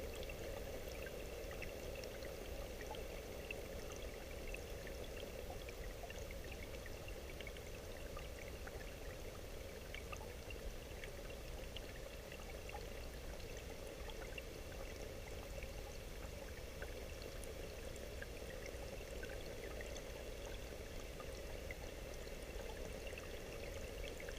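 Steady rain falling: a constant faint wash of water noise with many small scattered drop ticks.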